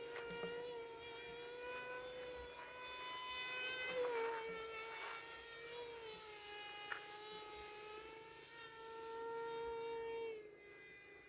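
Electric motor and propeller of a homemade RC boat plane running, a steady high whine that wavers in pitch with the throttle and dies away near the end.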